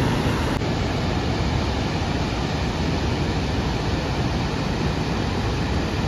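Steady rushing roar of the Detian–Ban Gioc waterfall, an even noise heavy in the low end.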